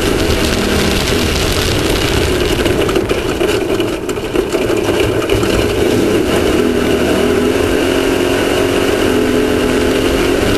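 Off-road race vehicle's engine running under throttle on the move, over a constant noisy din. It eases off briefly around four seconds in, then picks back up.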